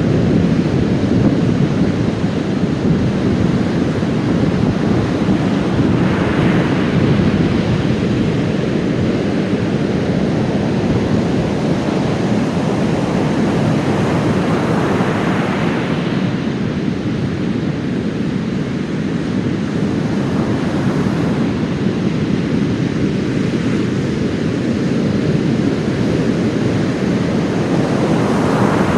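Heavy storm surf after a typhoon breaking on a sandy beach: a continuous deep roar of waves, with louder breakers surging a few seconds in, about halfway, and again near the end.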